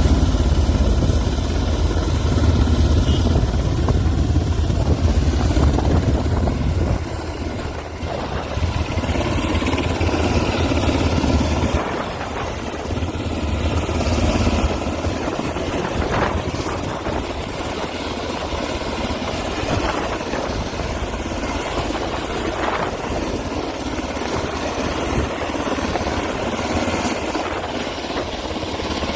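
Search-and-rescue helicopter's rotor and engine running steadily, heaviest in the first twelve seconds, then somewhat quieter.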